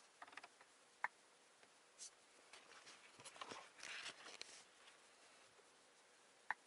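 Near silence in the car cabin, broken by two short electronic beeps from the Volkswagen Golf's infotainment touchscreen as it is tapped, about a second in and near the end, with faint rustling of the hand at the screen between them.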